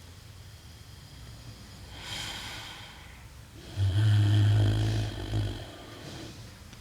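Pig snoring: a breathy hiss of breath about two seconds in, then a loud, low snore lasting about a second and a half.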